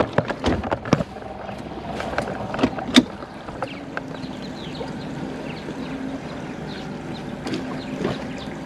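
Mercury 150 four-stroke outboard idling steadily while the boat creeps toward the trailer, with a few knocks in the first second and a sharp knock about three seconds in.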